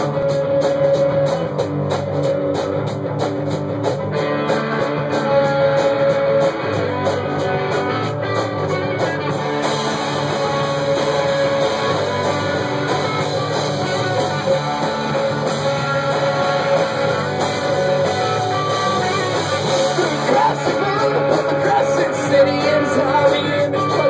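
Live rock band playing loud electric guitars and bass in a small basement room. The sound fills out with more high-end wash about ten seconds in.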